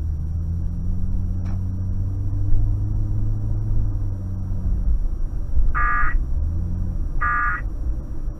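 AM radio reception of dead air: a steady low rumble and hum. About six seconds in come two short bursts of Emergency Alert System digital data tones, about a second and a half apart, the end-of-message code that closes the test alert.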